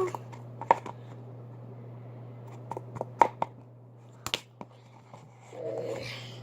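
Sticky, under-activated slime being stretched and pulled off the fingers, giving scattered small sharp clicks and pops, over a steady low hum.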